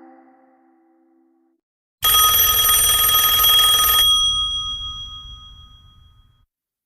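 OnePlus OxygenOS 14 alert tone playing. The end of the previous tone dies away, then about two seconds in a loud cluster of high ringing tones starts suddenly, holds for about two seconds and rings out over the next two.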